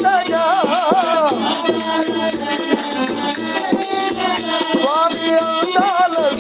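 Telugu devotional folk song (tattvam): a wavering, ornamented melody over percussion with a shaker keeping the rhythm.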